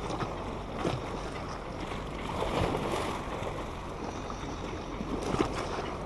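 Sea waves washing and splashing against a concrete pier in a steady wash that swells for a moment about two and a half seconds in.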